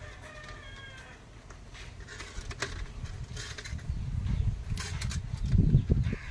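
A drawn-out animal call in the first second and a half, then light metallic clicks and rattles as binding wire is twisted around a wire-mesh grill, over a low rumble that grows louder toward the end.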